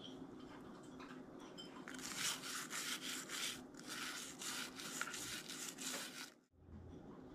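Toothbrush bristles scrubbing a wet opossum skull in quick back-and-forth strokes, about three a second, starting about two seconds in and cutting off suddenly near the end. A faint steady hum sits underneath.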